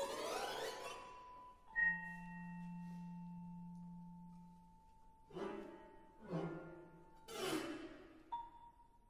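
Contemporary art music for percussion and electronics. A thin steady high tone runs under a sharp struck note about two seconds in, which rings on as a low held tone for about three seconds. Three swelling whooshes follow, about a second apart.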